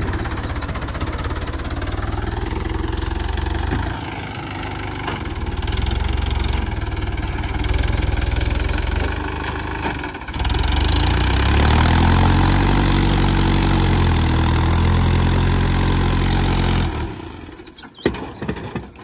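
Mahindra Yuvo tractor's diesel engine working hard under heavy load, straining to pull a loaded trailer out of soft sand. About ten seconds in it revs up higher and holds there, then falls away near the end, followed by a single knock.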